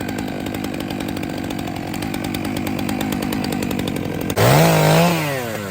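Gasoline chainsaw running at a steady low speed, then revved hard about four seconds in, its pitch rising, holding and dropping back.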